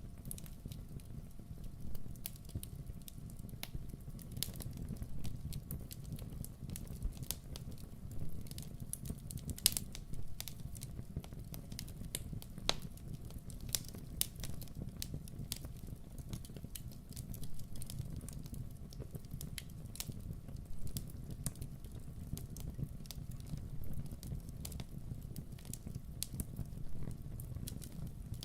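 Campfire burning with a low steady rumble and irregular sharp crackles and pops of burning wood.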